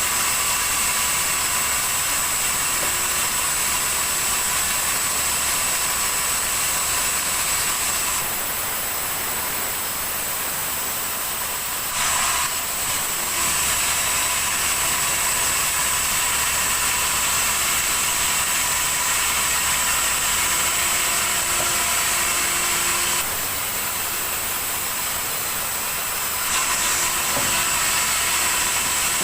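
Sawmill saw running steadily with a high whine over a hiss, easing off briefly twice.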